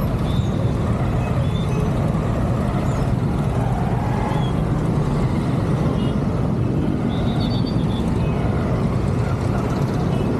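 Steady low rumble of riding a scooter through dense traffic, heard from a helmet-mounted camera: wind and engine noise mixed with surrounding motorbikes and cars. A few faint, brief high-pitched tones come through.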